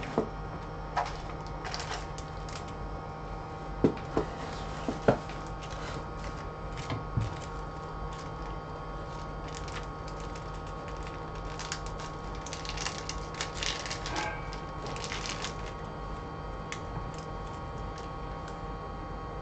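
Scattered small clicks, taps and knocks of tools and parts being handled, the sharpest a few around four to five seconds in and a run of lighter clicking around twelve to fifteen seconds, over a steady electrical hum.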